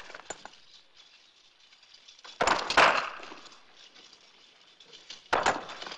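Sledgehammers striking rocks: a quick run of sharp blows about two and a half seconds in, and another blow just before the end.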